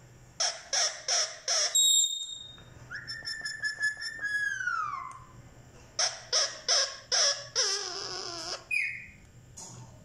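Indian ringneck parakeet calling: a run of four short, sharp squawks, then a held whistled note that slides down in pitch, then four more short squawks and a longer wavering call near the end.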